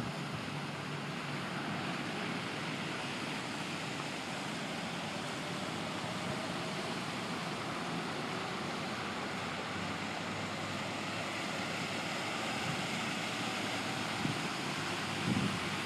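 Storm overwash seawater rushing across a flooded road, a steady hiss. Near the end a pickup towing a boat splashes through the water.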